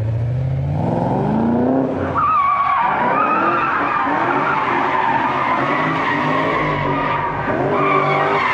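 Infiniti G35 sedan drifting: the engine revs up over the first two seconds, then the tyres squeal, wavering in pitch as the car slides, with the engine running on beneath.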